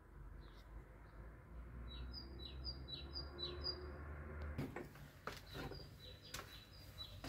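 Small birds chirping faintly: a run of short, quick chirps repeated at an even pace over a low rumble. About halfway through the rumble stops abruptly, and a few sharp clicks follow while the chirping goes on.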